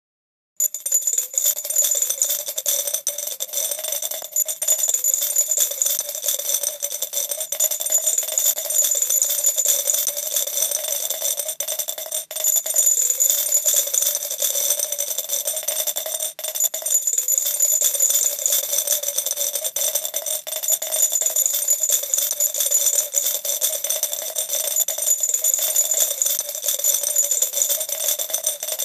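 Coins pouring into a glass jar, a sound effect: a dense, unbroken clinking and jingling of metal on metal and on glass, starting about half a second in.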